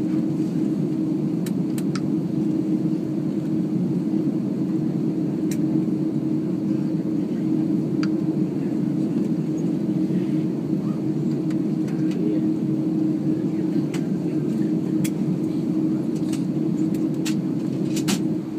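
Steady hum inside the passenger cabin of an Airbus A330-300 taxiing in after landing, from its jet engines at low taxi power and the cabin air. It holds a constant low tone, with a few faint clicks.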